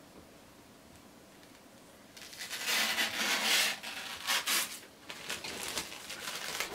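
Quiet at first, then from about two seconds in, irregular bursts of rustling and crinkling handling noise.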